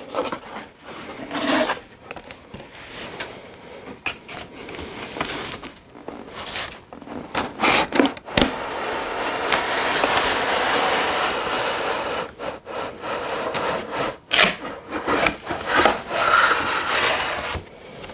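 Cardboard rubbing and scraping as a brown inner cardboard box is slid out of a printed cardboard outer box, with flaps handled and knocked. A long, steady scrape runs from about eight to twelve seconds in, with scattered knocks and short rubs before and after it.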